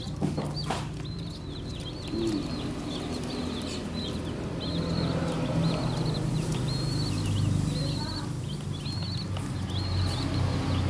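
A group of young chicks peeping: a continuous run of short, high-pitched cheeps overlapping one another, over a low steady hum.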